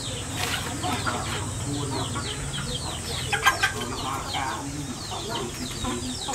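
Chickens clucking as they peck at grain, over a steady run of quick, high, falling chirps. A couple of louder, sharper sounds stand out about three and a half seconds in.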